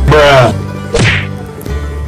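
Edited transition sound effects over background music: a loud swoosh at the start, then a sharp whip-like whack about a second in.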